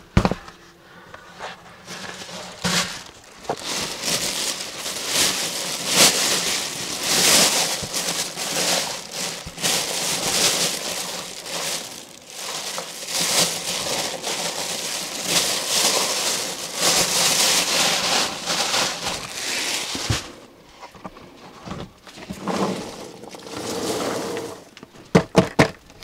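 Thin plastic bag crinkling and rustling as it is handled over a bucket of mushrooms. The crinkling starts a few seconds in and stops about 20 seconds in, followed by fainter handling noise and a few clicks.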